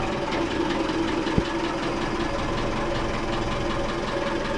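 Ford inboard boat engine idling steadily just after being started, on its first run after being realigned to the shaft, with a fast, even ticking. A single sharp knock comes about a second and a half in.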